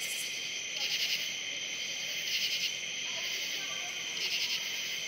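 Chorus of night insects: a steady high trill that swells in pulses every second or so.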